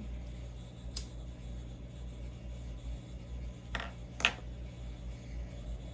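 A low steady hum with small handling noises: one sharp click about a second in, then two short soft rustles around four seconds in.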